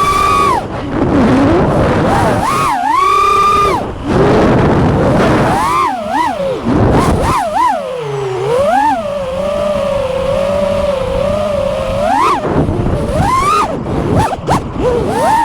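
Brushless motors and four-blade props of a 5-inch FPV quadcopter (T-Motor Velox V2 2207.5 1750kv on 6S) whining, the pitch swooping up and down with throttle as it is flown. It holds a steadier pitch for a few seconds near the middle, then punches up sharply twice near the end.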